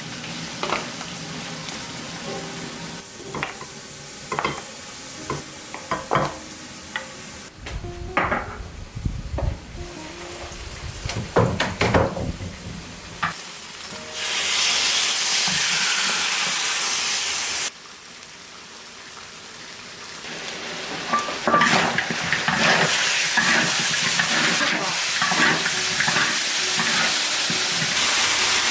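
Food frying in hot oil, with utensils knocking and clattering against the pan for the first half. About 14 s in a loud sizzle starts, then cuts off suddenly a few seconds later. The sizzling builds again from about 20 s, with quick clicks of stirring.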